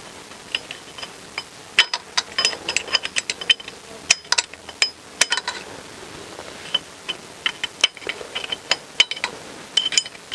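Clutch plates in a Honda CBR1000F clutch basket clicking and scraping as they are prised loose by hand and with a pick: irregular light metallic clicks in clusters, with a few sharper clacks.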